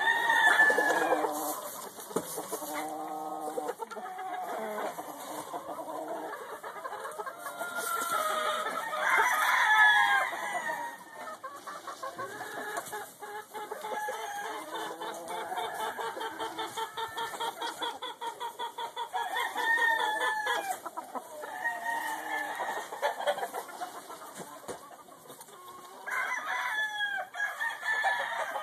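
Sweater-Kelso gamefowl crowing several times, mixed with clucking. A long run of quick, even clucks comes in the middle.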